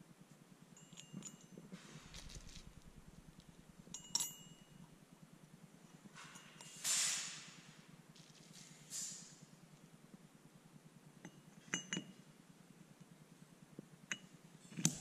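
Steel differential parts (bevel gears and differential case) clinking against each other as they are handled and set down, in scattered sharp metallic clinks. Two short rustles of plastic bubble wrap come in the middle.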